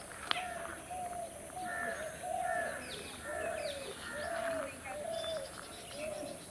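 Birds calling: a steady run of short, arched low notes about two a second, with quicker higher chirps over them and a faint steady high hiss.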